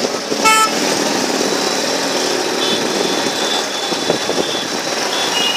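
Small engine of a slow-moving light vehicle running steadily in street traffic, with a short horn beep about half a second in.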